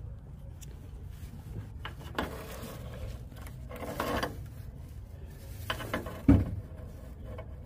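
A wrench being worked on the fitting nut of a turbocharger oil drain tube: a few short rasping, scraping strokes of metal on metal, with one sharp knock about six seconds in, over a steady low hum.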